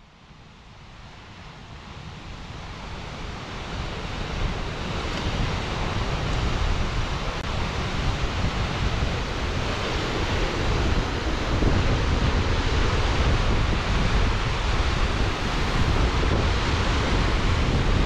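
Steady roar of a large waterfall and the rushing river below it, fading in over the first few seconds and then holding steady.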